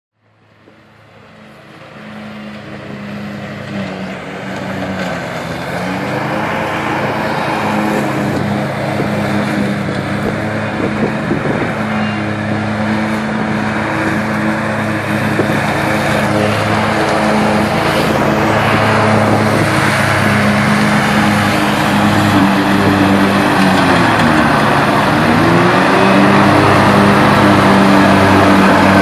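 Hustler Super Z zero-turn mower's engine running steadily while mowing tall, dry grass. It fades in over the first few seconds, and its pitch dips briefly twice, about five and twenty-five seconds in.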